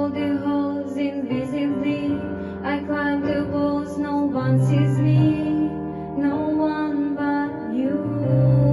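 A teenage girl singing a slow, tender ballad over an instrumental accompaniment.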